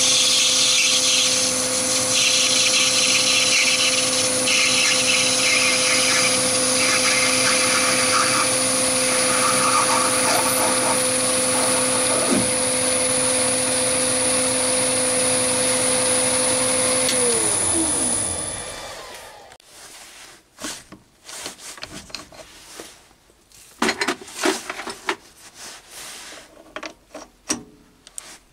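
Chinese mini lathe motor running with a steady whine while the tool cuts brass, parting off a spinning top. About 17 seconds in the motor is switched off and its pitch falls as the spindle spins down. This is followed by scattered small metal clicks and knocks as the quick-change toolpost is handled.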